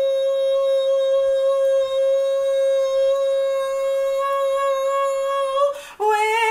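A woman singing, holding one long steady note for nearly six seconds, then sliding down to a slightly lower, wavering note near the end.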